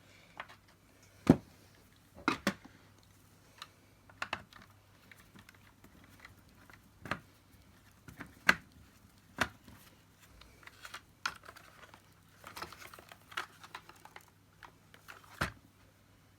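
Irregular clicks, taps and knocks of hard plastic parts of a Dyson DC50 vacuum cleaner head being handled and worked on, with a sharper knock about a second in.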